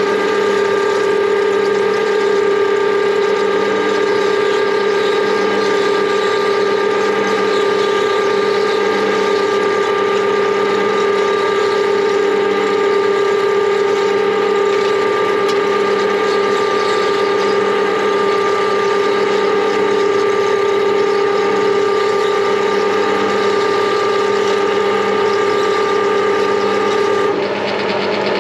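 Geared lathe running under load, its gear whine steady over the hiss of a carbide-insert roughing tool cutting a steel shaft under flood coolant. About a second before the end the hiss thins and the tone shifts slightly.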